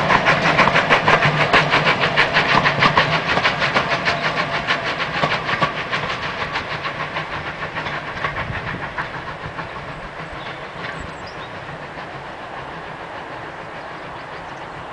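Steam locomotive hauling a passenger train away at speed: a quick, even chuffing of exhaust beats together with wheel noise, fading steadily as the train recedes.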